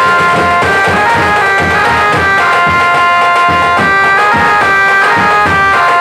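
Loud aarti music: a melody of held, wind-like notes stepping up and down over fast, steady drumming.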